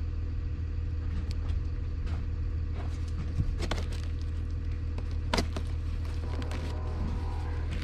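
Steady low rumble, with a few short clicks and scrapes as hands handle a large taped cardboard box.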